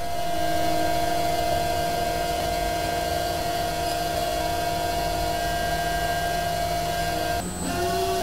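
Forklift whining steadily as its forks lift a loaded pallet of boxes, tilting the stack. The whine breaks off for a moment near the end, then resumes at a lower, wavering pitch.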